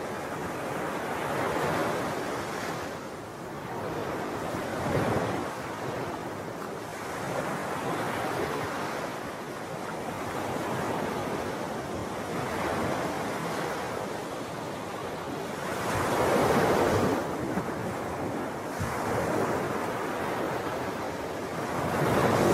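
Wind buffeting the microphone in gusts, a rushing noise that swells and fades every few seconds, loudest about two-thirds of the way through and again at the end.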